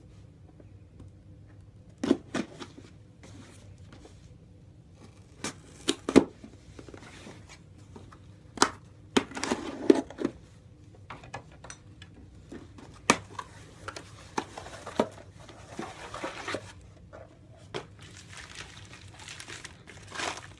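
Cardboard shipping box being torn open by hand, with sharp irregular snaps and tearing, then white packing wrapping crinkling as it is pulled out near the end.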